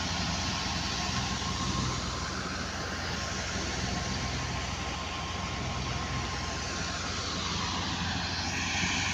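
Tractor-driven wheat thresher running steadily, a low engine hum under a continuous hiss of threshing. The hiss gets louder near the end.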